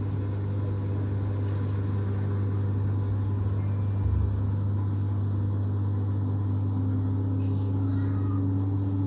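LG washing machine running, its drum motor making a steady low hum with a brief low bump about four seconds in, and a whine that slowly rises in pitch from about halfway as the drum speeds up.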